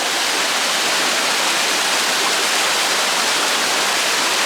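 Waterfall rushing: a loud, steady roar of falling water close by.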